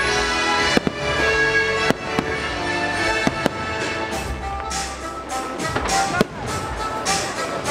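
Fireworks bursting over a loud music soundtrack, with a few sharp bangs in the first half. From about halfway through comes a quick run of crackling.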